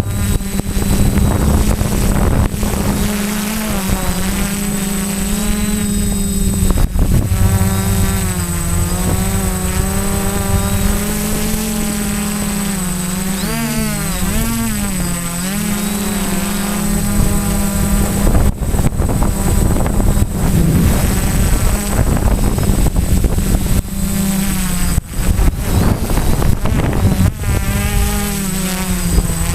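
Quadcopter's electric motors and propellers buzzing steadily, the pitch wavering up and down with throttle changes and dipping sharply about halfway through. Wind noise and brief crackles run through it.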